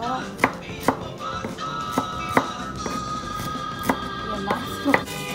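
Chef's knife chopping small red onions on a wooden cutting board: about eight sharp strikes at an uneven pace. Background music plays throughout.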